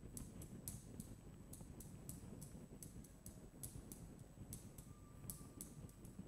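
Faint, irregular ticks and taps of a pen stylus on the glass of an interactive touchscreen display as words are handwritten, over a low room hum and a thin steady high-pitched whine.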